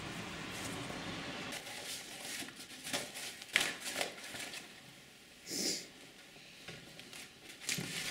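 Footsteps and paper crinkling as someone walks over old printed sheets and debris scattered on a floor: a few short, irregular scuffs and rustles. A steady background hiss comes first and stops about a second and a half in.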